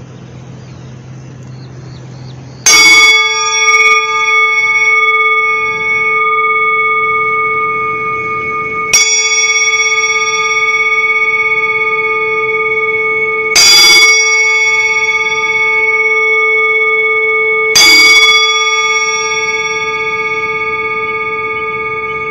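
Brass singing bowl held on an open palm and struck with a wooden striker four times, a few seconds apart. Each strike rings on in a long, steady, deep tone with shimmering higher overtones, and each ring overlaps the next.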